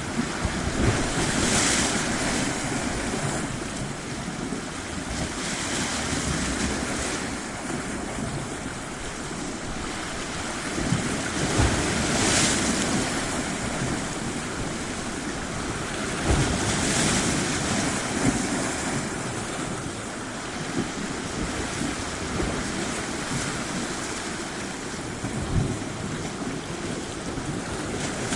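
Waves washing onto a shore, swelling into a hiss every few seconds and drawing back, with a few short low thumps.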